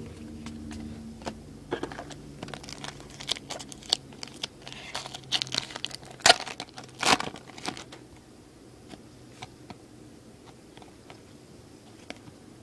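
Foil wrapper of a baseball card pack crinkling and tearing open, with cards being handled. The rustle and crackle are busiest in the middle few seconds, then thin out to a few light clicks.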